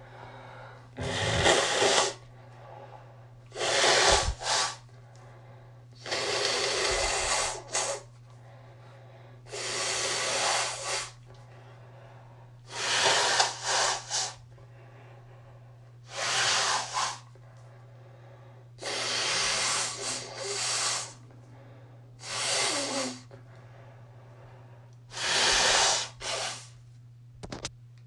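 A person blowing their nose into a Puffs Plus tissue, congested from allergies: about ten soft, wet blows every two to three seconds, each lasting one to two seconds and often ending in a short extra puff.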